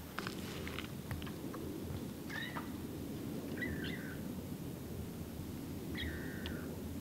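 Squirrels giving alarm calls: three short calls, each a sharp chip that slides into a brief falling whistle, about two and a half, three and a half and six seconds in. A few light clicks come in the first second.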